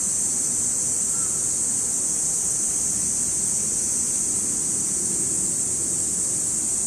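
Steady, high shrill chorus of cicadas, the loudest sound throughout, over the faint low rumble of a Seibu 6000-series electric train running away along the line.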